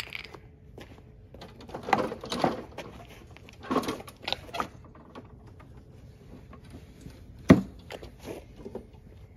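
Toro Recycler push mower being tipped over onto its side: a series of handling knocks and scrapes, with one sharp, loud knock about seven and a half seconds in as it settles.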